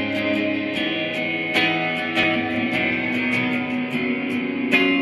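Electric guitar music: picked notes and chords ringing on, with a sharp attack every fraction of a second and the harmony shifting every second or so.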